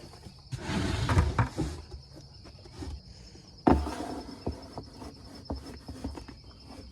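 Insects trill steadily and high in the background, over rustling, clicks and knocks of handling and footsteps, with a sharp thump a little over halfway through.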